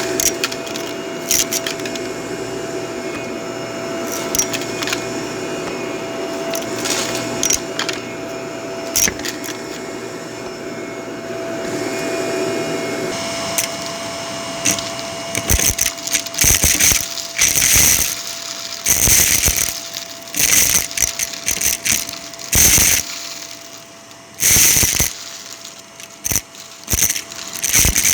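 Vacuum cleaner running steadily with a constant hum. From about halfway through, loud irregular clattering and crackling bursts break in, like hard bits being sucked up and rattling through the hose.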